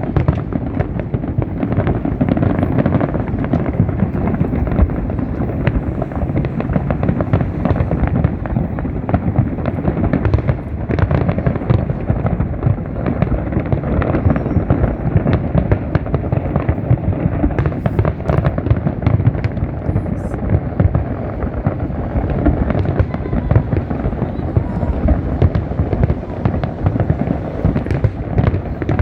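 A large fireworks display in a dense, continuous barrage: rapid overlapping bangs and crackles with no let-up.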